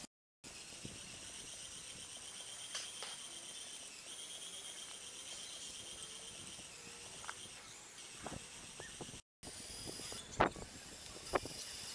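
Small electric motors of a LEGO Technic RC machine running with a steady high-pitched whine, with a few sharp plastic clicks and knocks near the end, the loudest about ten seconds in.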